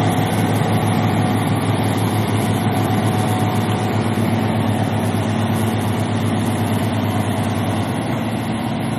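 Diesel engine of a loaded Mercedes-Benz log truck running steadily as the truck works through deep mud.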